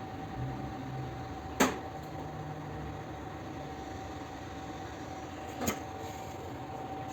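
Two sharp knocks about four seconds apart, the first louder, over a steady background hum with one constant tone.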